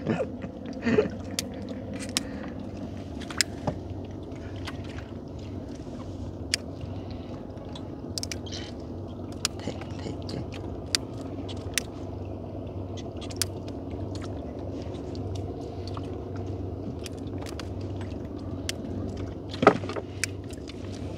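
A small boat's engine running steadily at an even pitch. Scattered sharp clicks and knocks sound over it, with one louder knock near the end.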